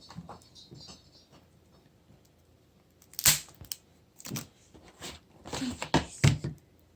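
Plastic toy packaging being handled and opened: a few sharp clicks and crackles, the loudest about three seconds in and a cluster near six seconds.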